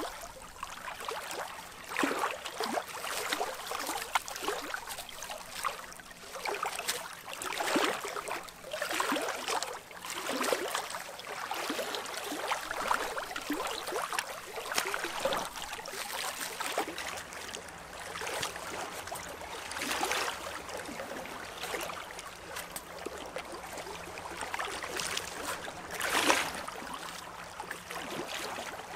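Small waves lapping and splashing against a rocky shore, in irregular swells every second or two.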